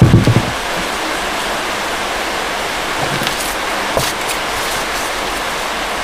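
Steady hiss, with a low thump at the very start and a few light knocks about three and four seconds in as two motorcycle alloy wheel rims are handled and pressed against each other.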